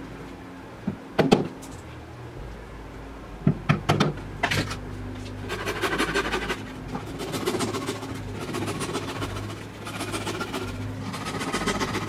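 Workshop handling noises: a few sharp knocks in the first half, then a steady rasping rattle from about halfway on.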